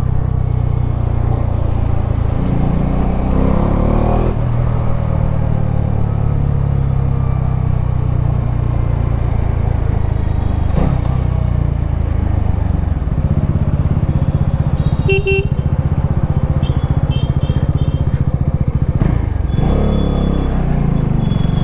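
Bajaj Dominar 400's single-cylinder engine running steadily on a ride through city traffic, its note climbing briefly a few seconds in. Vehicle horns honk about 15 seconds in and a few more times near the end.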